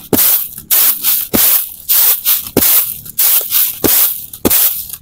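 Raw rice grains swishing and rattling in a bamboo winnowing tray (soop) as it is shaken in regular strokes, a little under two a second, each with a light tap of the tray. The rice is being cleaned of leftover paddy grains.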